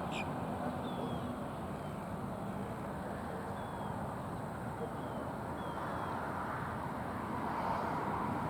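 Steady low outdoor background rush, with faint, short bird chirps scattered through it about once a second.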